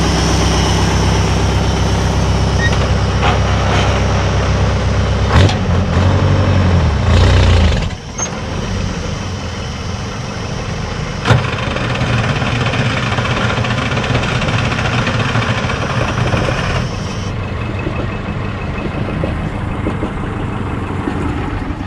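1974 White Road Boss's 8V71 two-stroke Detroit Diesel running steadily, with sharp knocks about five and eleven seconds in. About eight seconds in, its engine note drops out abruptly and a steady rushing hiss follows, which the owner takes for the engine running backwards.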